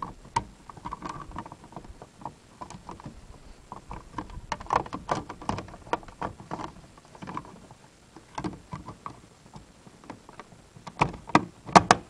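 Plastic clicks and knocks of a Kia Rio door-mirror cover being pressed into place by hand. Near the end comes a cluster of louder snaps as it clips home.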